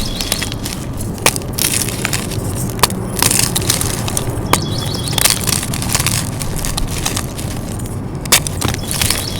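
Dyed gym chalk being crushed: a steady crunching and crumbling, broken by sharp cracks at irregular moments.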